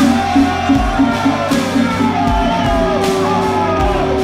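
Music with a steady quick beat and a gliding melody line.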